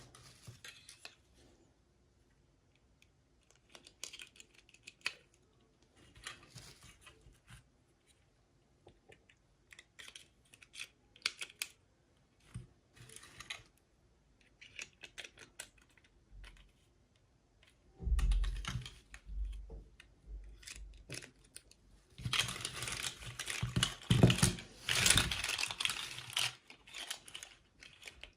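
Toy packaging and small plastic pieces being handled: scattered clicks, taps and rustles, with a few heavier knocks about two-thirds of the way in and a louder stretch of crinkling and rattling near the end.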